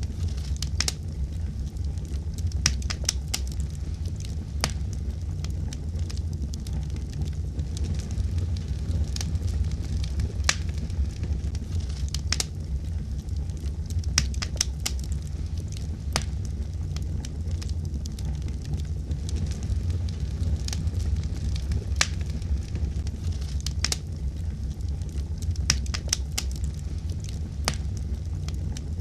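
Wood fire burning with a steady low rumble and frequent sharp crackles and pops scattered irregularly throughout.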